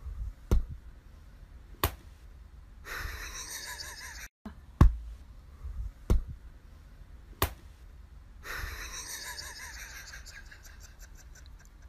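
Six sharp knocks, the first two close together, with two longer stretches of hissing, breathy noise in between.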